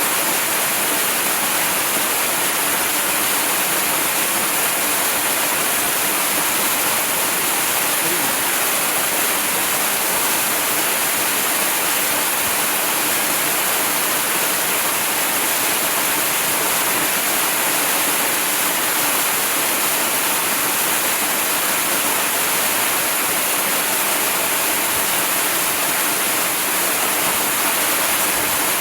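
Waterfall: a steady, even rush of falling water, heaviest in the hiss of the higher range.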